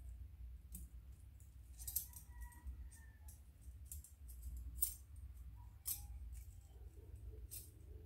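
Steel wire puzzle rings and a small metal chain clinking and jingling as they are handled, with about five sharper clinks among lighter ticks.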